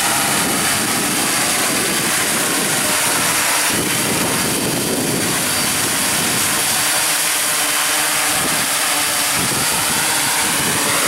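Hexacopter hovering low, its six electric motors and propellers whining and buzzing steadily, with several tones drifting slightly up and down in pitch as the throttle is held.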